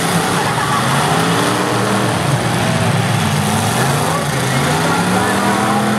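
Several demolition derby cars' engines running and revving, their pitches rising and falling over one another, over a loud haze of mechanical noise.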